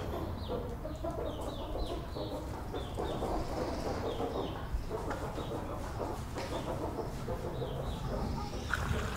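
Birds chirping: a quick series of short, high, falling chirps, several a second, over a steady background noise.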